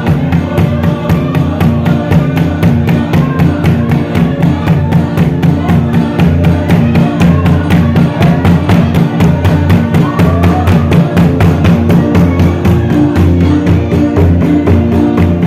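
Loud church dance music: a congregation singing over a fast, steady drumbeat, with a Mizo khuang barrel drum among the instruments and sustained low accompaniment underneath.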